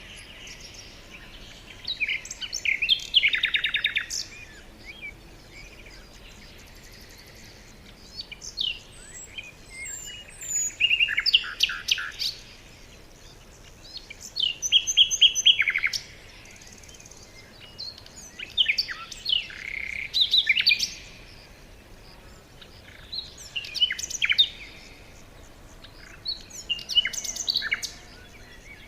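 Songbirds singing in short bouts of quick chirps and trills, a new phrase every few seconds with pauses between, over faint steady background noise.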